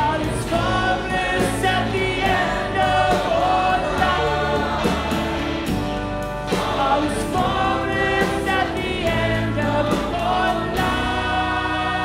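Live rock song with choir and orchestra: a mixed choir and a male lead voice sing over the band and strings, with steady drum hits. The hits stop near the end, leaving a held chord.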